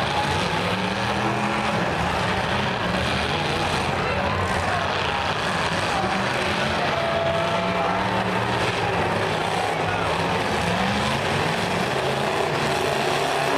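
Engines of several demolition derby cars running and revving in the arena, their pitch repeatedly rising and falling as the cars rev, over a steady mixed din.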